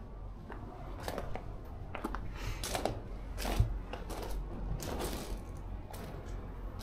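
Footsteps crunching on loose gravel at a walking pace, irregular, with one louder low thump about three and a half seconds in, over a low steady rumble.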